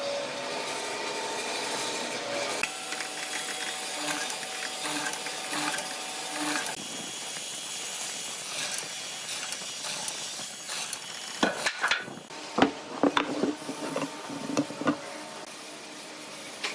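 Woodworking shop noise: wood being rubbed and scraped by hand tools. Near the end comes a run of sharp knocks and clacks.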